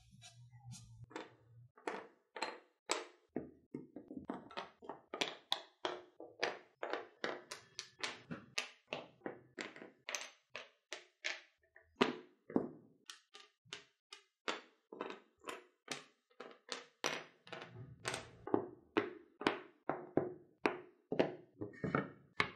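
Small cut wooden automaton parts being set down one after another on a flat surface: a run of short wooden clacks, about two a second.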